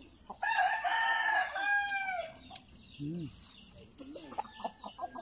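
A rooster crowing once, a single call about two seconds long, followed by a few low clucks from the chickens.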